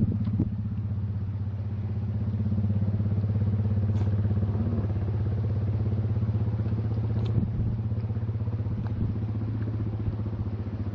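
A small motor engine running steadily at an even speed, with a few faint clicks over it.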